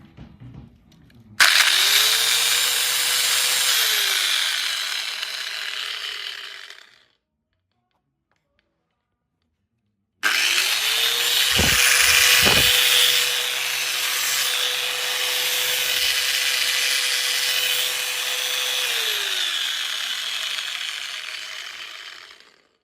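Handheld electric power tool switched on twice: each time the motor spins up to a steady high whine with a loud hiss, then winds down as it coasts to a stop. The first run is short, the second lasts about twelve seconds.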